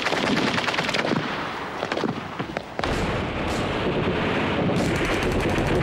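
Battle sound effects: rapid gunfire, then, about three seconds in, a heavy explosion whose low rumble carries on under continued firing.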